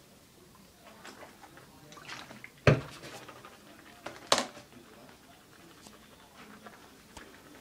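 Handling noises as a mouthwash bottle and a phone are moved about: faint rustles and small clicks, with two sharp knocks, the first the loudest, nearly three seconds in and about a second and a half later.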